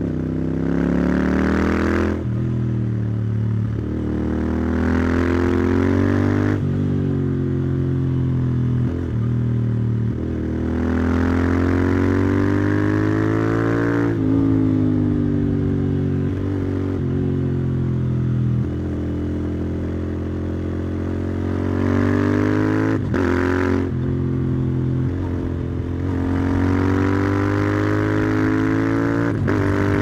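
Royal Enfield Interceptor 650's parallel-twin exhaust under way. Its pitch climbs as the bike pulls through the gears and drops back at each shift, several times over, with stretches where it eases off and the pitch falls.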